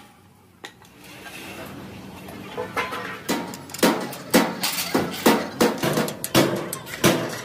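A quick run of sharp metallic knocks and clinks, about two a second, as steel parts are handled and struck against a steel plate; the first couple of seconds are nearly quiet but for a single click.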